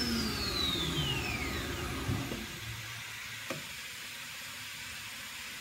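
Multicam MG Series CNC router spindle spinning down from 18,000 rpm after being switched off: a falling whine that fades out over about two and a half seconds, leaving a faint hiss, with two light clicks about two and three and a half seconds in. The spin-down is smooth, and everything sounds great.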